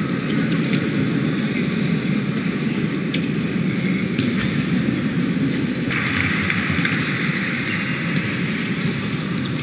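Handball arena ambience: steady crowd noise in an indoor hall, with a few sharp knocks from the ball and play on the court. The crowd noise turns brighter about six seconds in.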